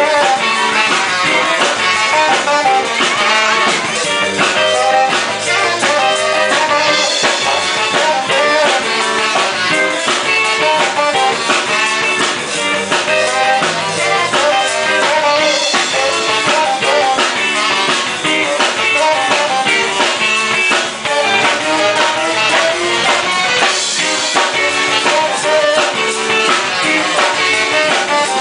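Live band playing a tango: a tenor saxophone carries the melody over electric guitar and drum kit.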